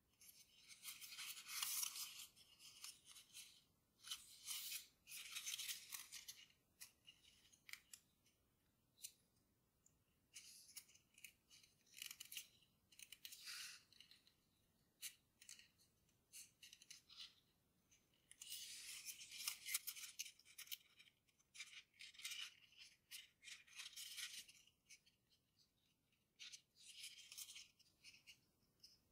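Quiet rustling and crinkling of Grainy origami paper as fingers pinch and shape a folded paper model, in irregular short bursts with occasional crisp clicks of the paper, the busiest handling coming in the first few seconds and again about two-thirds of the way through.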